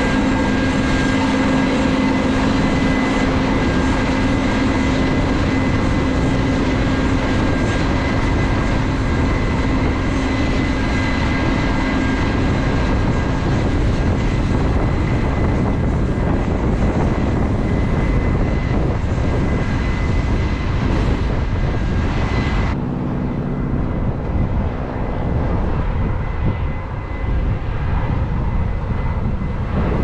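Case IH 8120 Axial-Flow combine harvester running steadily, a dense mechanical rumble with a high whine over it. About three-quarters of the way through, the whine cuts off suddenly and only a lower rumble remains.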